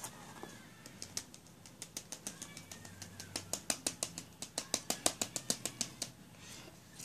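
A cardboard box of baking soda tapped with the fingers to shake the powder out. A few scattered taps come first, then a quick, even run of about six taps a second that grows louder and stops about six seconds in.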